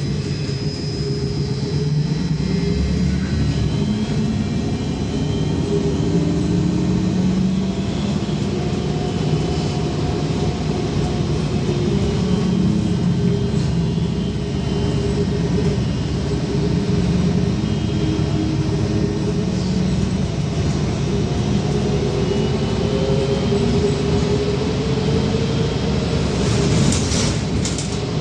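Cabin noise of a VMZ-5298.01 trolleybus in motion: a steady rumble of the running gear and road with the electric traction drive's whine slowly rising and falling in pitch as the bus speeds up and slows. A brief hiss comes near the end.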